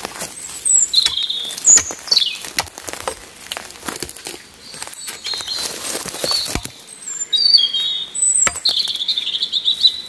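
Small birds chirping: short high whistles, some gliding downward, and a longer warbling call near the end. Under them, scattered knocks and crackles of a hatchet working a dry pine sapling.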